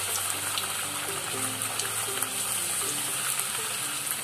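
Bhatura deep-frying in hot oil in a steel kadai: a steady sizzling hiss with small crackles as the dough puffs, while a wire skimmer works in the oil.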